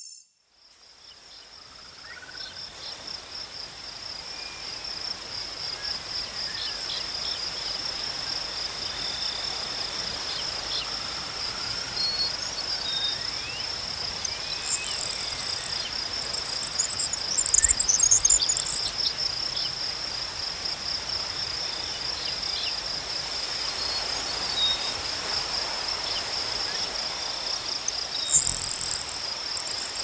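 Insects trilling in a steady high, pulsing chorus, fading in over the first few seconds, with faint bird chirps scattered through and a few louder, higher chirps around the middle and near the end.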